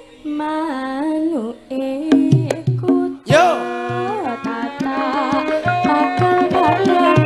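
A Javanese sinden sings a solo vocal line into a microphone, her voice sliding between pitches. About two seconds in, a gamelan hand drum starts striking, and a little after three seconds the full gamelan ensemble comes in under her voice.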